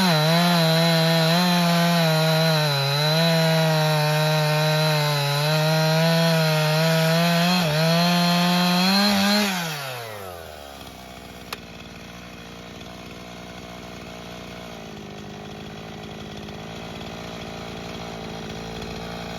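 Husqvarna two-stroke chainsaw held at high revs, its pitch dipping slightly now and then under load as it cuts hardwood. About halfway through it winds down to a quieter, steady idle, with a single click soon after.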